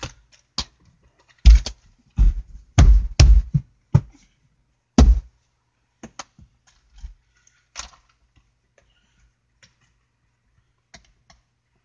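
Plastic interior trim panel of a car being pushed and knocked back into place: about six sharp knocks and clip snaps in the first five seconds, then lighter scattered clicks and taps.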